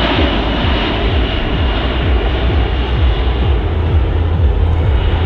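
USAF C-17 Globemaster III's four Pratt & Whitney F117 turbofan engines running loud and steady as the jet banks overhead, a deep rumble with a faint high whine that fades about three and a half seconds in.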